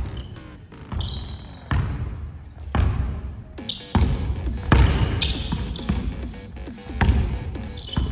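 A basketball being dribbled on a hardwood gym floor at about one bounce a second, each bounce echoing in the hall. A few short high squeaks of sneakers on the court come in between.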